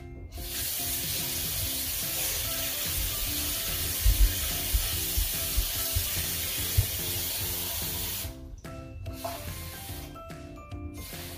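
Kitchen tap running steadily, then shut off sharply about eight seconds in, with a few dull knocks partway through. This is lukewarm water being run to measure for proofing yeast.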